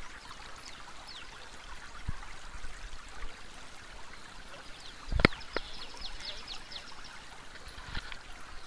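Rustling and scuffing picked up by a GoPro strapped to a dog's back as the dog moves about, fur and harness rubbing on the camera housing. Two sharp knocks come a little over five seconds in, with faint high chirps here and there.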